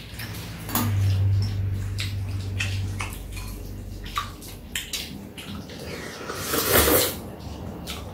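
Jajangmyeon noodles being slurped and chopsticks clicking against bowls as two people eat, with one louder slurp about seven seconds in.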